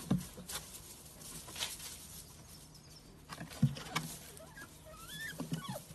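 Puppies' paws scrabbling and pattering on a wooden deck and gravel, with scattered light knocks and a louder thump about three and a half seconds in. A few faint high squeaks near the end.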